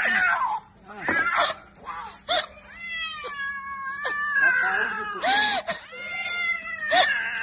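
A cat with its head stuck between metal fence railings, yowling and meowing in distress: a few short meows, then long drawn-out wails from about three seconds in.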